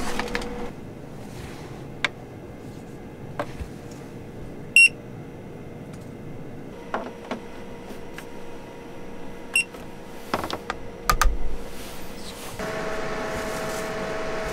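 An electric appliance beeps sharply once about five seconds in and again, more faintly, nearly ten seconds in, among light clicks and knocks of things being handled. Near the end a steady machine hum with a held whine starts up and keeps going.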